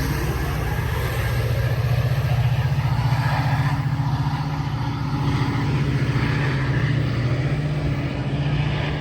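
Metra commuter train's diesel locomotive running steadily as the train departs, a continuous low engine drone with a fast throb under a haze of train noise.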